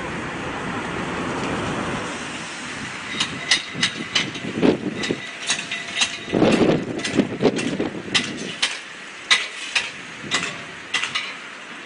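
Irregular knocks and clatters of toppled fence sections being handled and cleared. The loudest thuds come about four and a half and six and a half seconds in. Before the knocking starts about three seconds in, there is a rushing noise.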